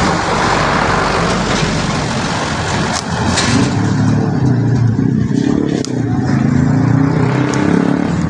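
Road traffic passing close: a vehicle rushes by with tyre and engine noise. From about three and a half seconds in, the low, steady sound of a heavy engine running nearby takes over.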